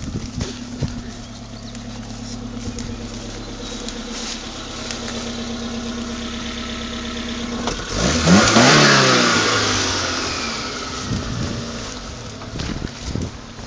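Suzuki Samurai engine running steadily, then revved hard about eight seconds in, its pitch climbing sharply and then falling away over the next few seconds.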